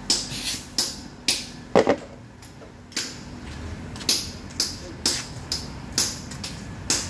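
Metallic clicks and clinks from a car air-conditioning compressor's clutch hub plate being handled and turned on a worktable: about a dozen sharp knocks, spaced irregularly, over a low hum.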